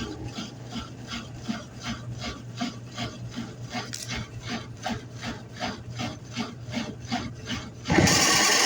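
Washing machine with a faulty transmission giving a rhythmic rubbing scrape, about three strokes a second. A louder steady rushing noise starts suddenly near the end.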